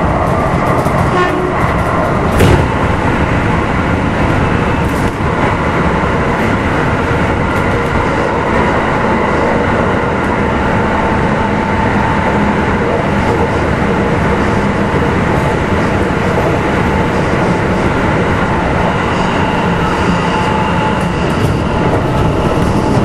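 Running noise of a Kintetsu 1253-series electric train, heard from inside a passenger car: a steady rumble of wheels on rail with a few held tones through it. There is a single sharp knock about two and a half seconds in.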